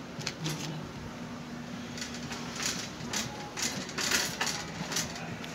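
A shopping cart clattering and rattling as it is pushed, with boxes knocking about in its basket. There is a run of short knocks, loudest and most crowded about four seconds in.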